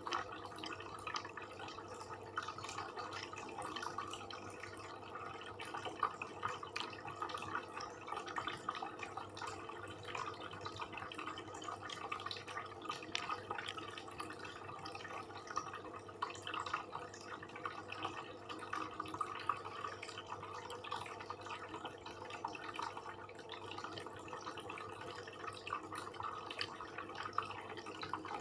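Close-miked eating sounds of a person chewing satay and rice: a continuous stream of small, irregular wet mouth clicks and smacks.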